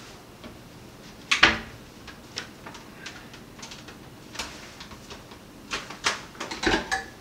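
Scattered clicks and knocks of items being handled on a kitchen counter, with one louder knock about a second and a half in and a run of clatter near the end.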